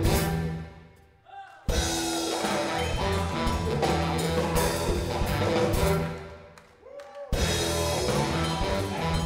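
Live blues-rock band playing, with electric guitar, bass and drum kit. Twice the whole band stops dead for about a second, leaving only a brief rising-and-falling note in the gap, then comes back in together.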